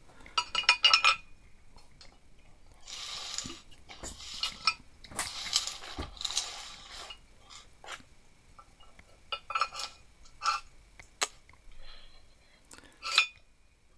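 Metal parts of an old four-jaw lathe chuck being handled: scattered clinks and knocks as the steel jaws are set into the chuck body, with a few seconds of scraping in the middle.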